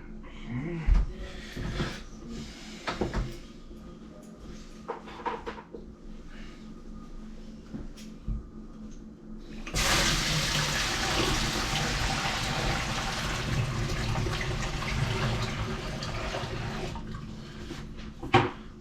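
Kitchen sink faucet turned on about halfway in, water running steadily into the sink for about seven seconds and then shut off: a test of whether the freshly snaked drain now flows away. A few knocks and clatters come before it and near the end.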